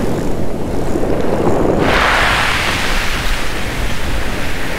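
Ocean surf washing continuously, with a wave breaking and rushing up loudly about two seconds in. Wind buffets the microphone underneath.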